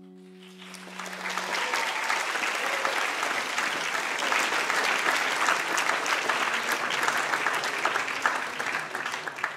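A held note fades out at the start, then an audience applauds: the clapping builds up about a second in, holds steady, and dies away near the end.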